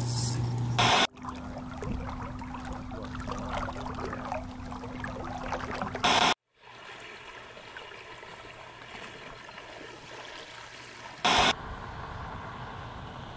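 Three short, loud bursts of static noise about five seconds apart, marking cuts between clips. Between the bursts there is quiet outdoor ambience with faint running water.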